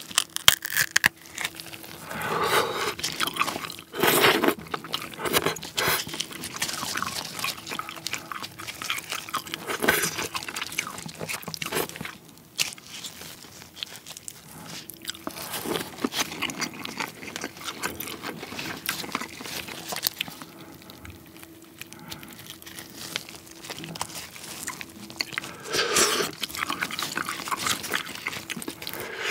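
King crab being eaten up close: the claw's shell cracking and snapping as gloved hands break it open and pull out the meat, mixed with chewing, in irregular clusters with a few louder cracks.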